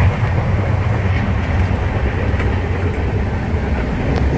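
Passenger train running, a steady low rumble and rattle of the wheels and carriage.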